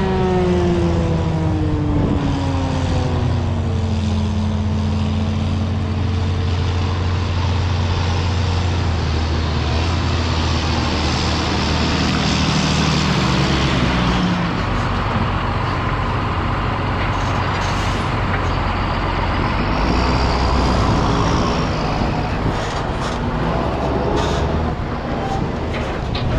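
Forage harvester and tractors running close by while chopping maize. The engine note falls over the first few seconds, then holds as a steady low drone under a rushing noise of machinery and wind.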